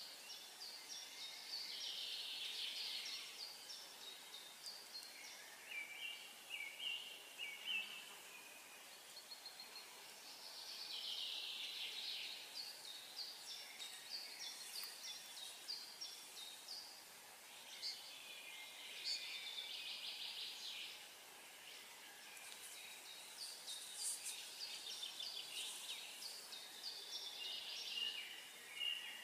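Songbirds singing, short overlapping phrases and trills coming in bouts every few seconds, over a faint steady outdoor hiss.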